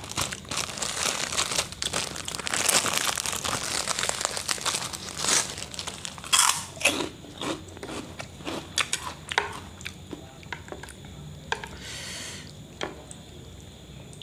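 Plastic bag of krupuk crackers crinkling as it is opened and handled for about the first six seconds, then a run of separate crunches that grow sparser toward the end.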